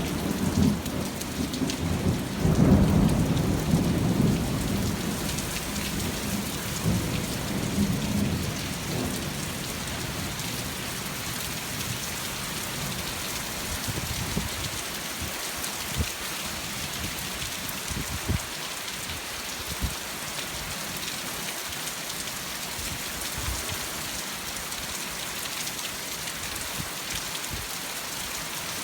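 Thunderstorm: steady heavy rain with a thunder rumble that is loudest about three seconds in and rolls away over the next several seconds. After that only the rain goes on, with a few sharp drips or taps here and there.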